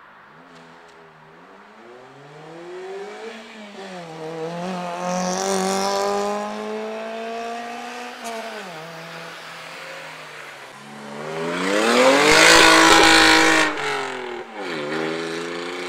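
Tuned car engines accelerating hard, their pitch climbing and dropping back several times as they rev. The loudest full-throttle pass comes about twelve seconds in.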